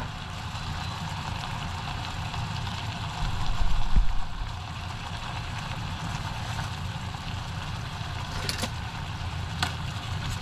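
Kimchi fried rice frying in a pan over a gas burner: a steady sizzle over the burner's rush, with a couple of light clicks near the end.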